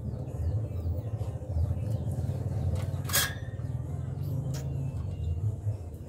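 A steady low rumble, like a running engine, with faint short high bird chirps repeating over it and one sharp click about three seconds in.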